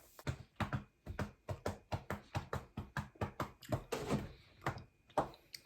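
A person chewing food close to the microphone, with wet mouth clicks and smacks at about four a second.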